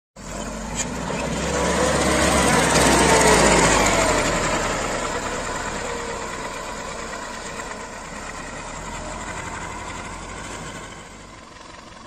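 Mahindra 475 DI diesel tractor engine running as it hauls a loaded mud trolley past, loudest a few seconds in with its pitch falling, then fading steadily.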